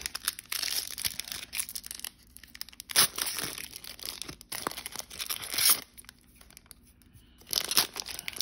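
Foil trading-card pack wrapper being torn open and crinkled by hand, in irregular crackly bursts, with sharper, louder tears about three seconds in, just before six seconds and near the end.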